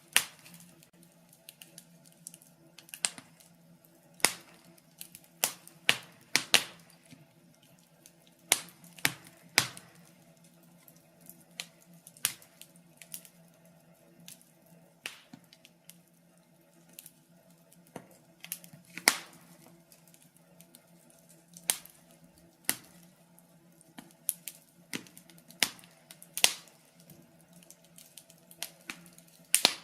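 Wood fire crackling in a fireplace: irregular sharp pops and snaps, some loud and some faint, over a faint steady hum.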